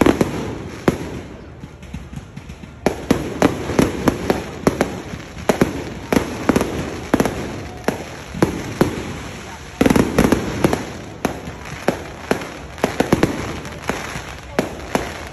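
Fireworks going off in a rapid, irregular string of bangs and crackling pops, easing briefly about two seconds in before the volley picks up again.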